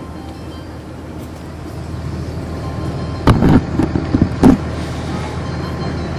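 Cummins ISC diesel engine of a 1999 NovaBus RTS transit bus running, heard from inside the bus, getting slightly louder about two seconds in. A quick run of loud knocks and rattles comes just past three seconds in.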